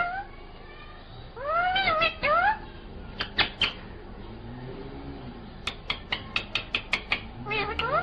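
Rose-ringed (Indian ringneck) parakeet giving short calls that bend up and down in pitch, twice. Between them comes a quick run of sharp taps, about five a second.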